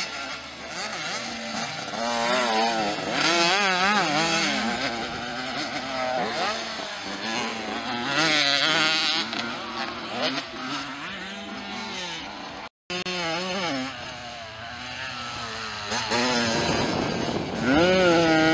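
Youth motocross dirt-bike engines revving, the pitch rising and falling again and again as riders open and close the throttle through turns and jumps. The sound drops out for a moment about two-thirds of the way through.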